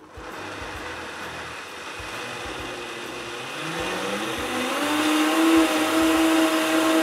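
Vitamix S30 blender motor starting up and blending a smoothie. The speed is turned up gradually: the motor's pitch climbs about halfway through, then holds steady at high speed as it gets louder.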